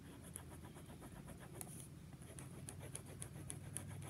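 Faint scratching of a pen drawing on paper, in quick short strokes.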